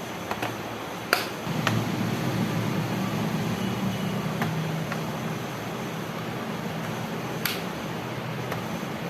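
Plastic snap clips of a laptop's bottom panel clicking as the panel is pried and pressed loose: a few sharp clicks, the loudest about a second in and another near the end, over a steady low hum.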